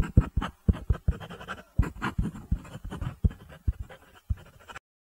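Pencil writing on paper, a sound effect of quick, irregular scratching strokes, which stops abruptly just before the end.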